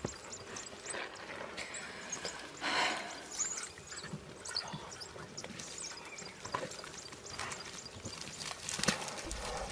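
African wild dogs giving many short, high-pitched twittering chirps, with two louder rushes of noise, about three seconds in and near the end.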